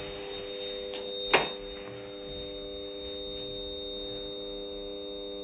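Steady electrical hum inside a lift car, several level tones at once, with a short high beep about a second in and a click just after.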